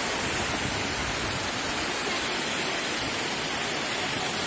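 Heavy rain mixed with hail pelting down in a thunderstorm, a dense steady hiss with no let-up.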